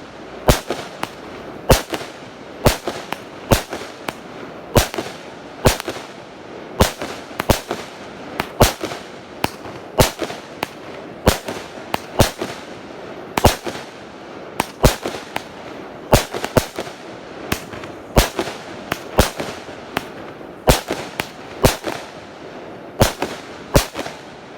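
A 25-shot consumer firework cake firing its shots in a rapid, regular string: sharp bangs about one a second, often in close pairs, over a steady noisy background.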